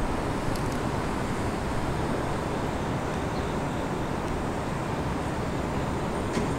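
Steady ambient noise of a subway rail yard: a constant low rumble and hiss that does not swell or fade, so no train passes. A faint click comes near the end.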